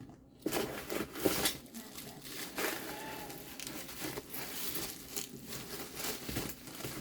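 Packaging being handled: plastic and paper crinkling and rustling with small knocks as a box is dug through and its contents pulled out, starting about half a second in.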